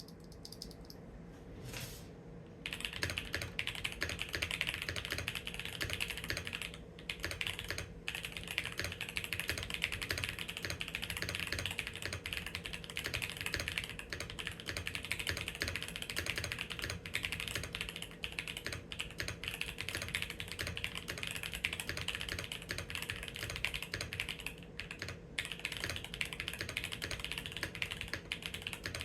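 Continuous fast typing on a custom GMMK Pro aluminium mechanical keyboard fitted with factory-lubed Yunzii Cocoa Cream V2 linear switches, doubleshot PBT keycaps, an FR4 plate, tape mods and a foam-filled case. A dense stream of keystrokes starts about two and a half seconds in and runs on with a couple of brief pauses.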